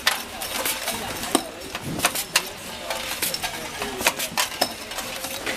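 Metal cabinet hinge parts clinking and clattering against one another: many irregular, sharp metallic clicks.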